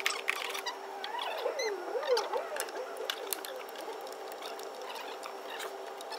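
Small clicks, taps and scrapes of engine parts being handled and fitted by hand, with a wavering squeak that slides up and down in pitch from about a second in for a couple of seconds, over a steady hum.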